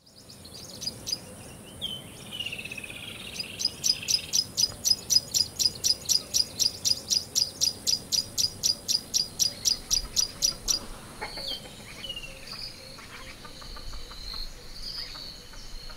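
Birds and insects calling. A fast run of short, high chirps, about four a second, goes on for around seven seconds over a faint steady high-pitched whine, with a few falling whistled notes before and after it.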